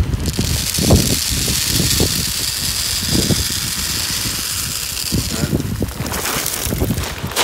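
Shelled corn poured from a sack into a PVC-pipe gravity hog feeder, with a steady rushing hiss as the kernels stream down the pipe. From about five and a half seconds in the pipe is full and the hiss thins as kernels spill over its top.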